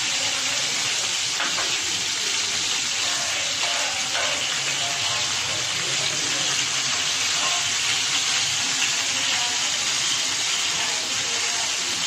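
Chopped onions sizzling in hot oil on a tawa, a steady even hiss throughout.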